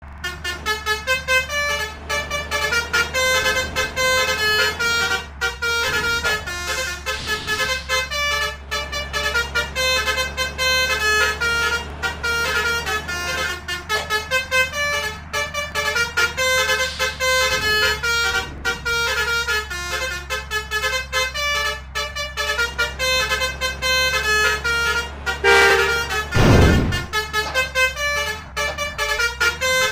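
A bus's basuri multi-trumpet musical horn ('om telolet' horn) playing quick runs of short notes as a tune, over a steady low engine hum. A louder blast that slides down in pitch comes near the end.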